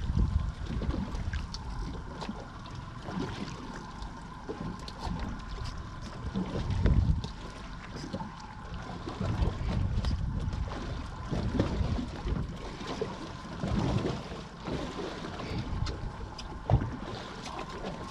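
Wind buffeting the microphone on a small fishing boat at sea, with uneven low gusts and water sounds around the hull. A faint steady hum runs underneath.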